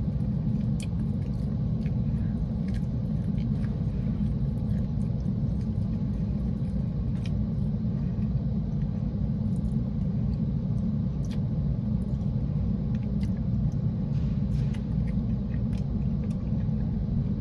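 Steady low rumble inside a parked car's cabin, with faint small clicks scattered through it.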